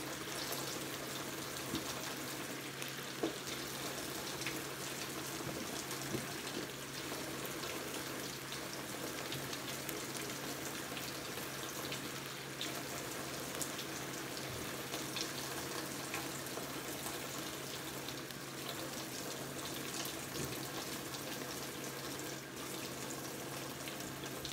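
Kitchen tap running steadily into the sink while cherry tomatoes are rinsed, with a few small knocks. The water cuts off suddenly at the very end.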